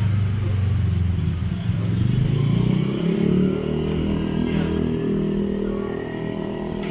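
A motor vehicle's engine running close by. About two seconds in its pitch rises as it accelerates, and it is loudest then, fading over the last few seconds.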